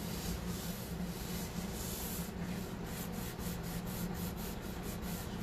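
Wet rag rubbed back and forth over a wooden tabletop, wiping chalk paint into the grain as a stain. After about two seconds the rubbing turns into quick, even strokes, about five a second.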